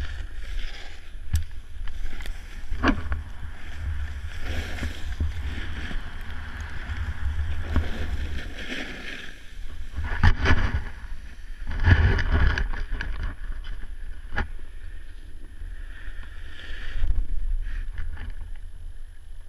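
Snowboard sliding and scraping over snow, with wind buffeting the camera's microphone in a steady low rumble. A few sharp knocks come along the way, the strongest around the middle.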